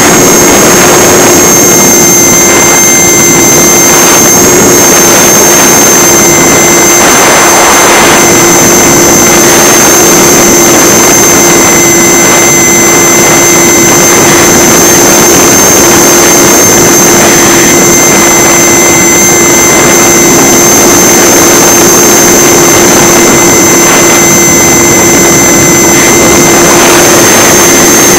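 Electric motor and pusher propeller of an EasyStar RC plane running at a steady high-pitched whine in flight, heard loudly from a camera mounted on the plane itself. Rushing wind noise from the airflow runs underneath.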